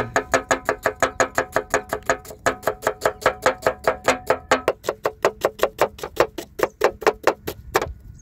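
Cleaver chopping small onions on a wooden block over an aluminium plate in quick, even strokes, about six a second, with a short pause about two seconds in. A steady ringing tone sounds along with the strokes.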